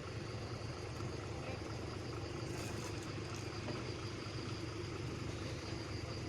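An engine idling with a steady low hum that stays even throughout.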